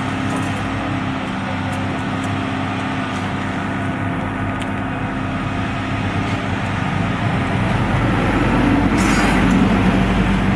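Caterpillar 328D LCR excavator's diesel engine running steadily, growing louder about eight seconds in as the machine works. A few light clicks and a short scrape near the end come from shovels and rakes working the gravel.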